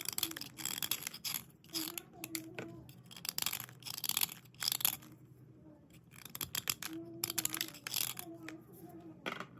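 White slate pencils being dry-cleaned by hand: runs of dry, raspy scraping and rubbing strokes in three groups with short pauses between.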